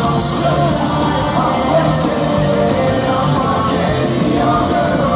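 Live rock band playing loud through an arena PA, with drums and a singer's voice over the band.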